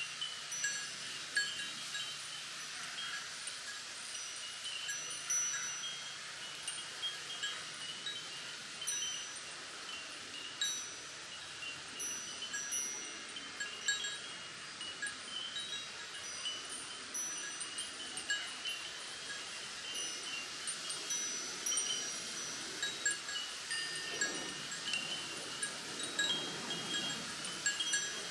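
Chimes ringing in irregular, overlapping tinkling strikes, stirred by the wind. Under them runs a steady rustle of wind through bamboo leaves.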